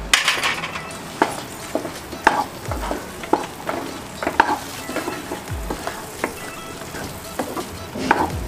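Wooden spatula stirring green peas and makhana (fox nuts) through frying masala in a non-stick kadhai: irregular scrapes and knocks against the pan every half second or so over a steady sizzle, with a few low thuds.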